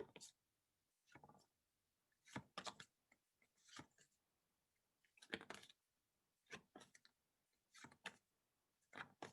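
Near silence broken by faint, irregular clicks and rustles, about one every second, from paper flashcards being flipped through by hand.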